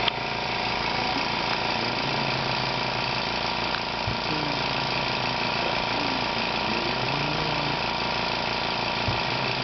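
Cough Assist mechanical insufflation-exsufflation machine running with a steady blower hum, working to push air into the lungs and draw it back out so that secretions can be coughed up. A click sounds about four seconds in and another near the end.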